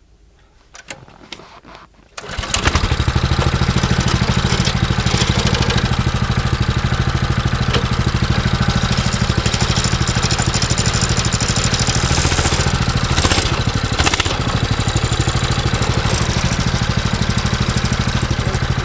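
Lifan 6.5 hp single-cylinder four-stroke engine of a motorized snow tow sled catching at once about two seconds in, after a few faint clicks, then running steadily.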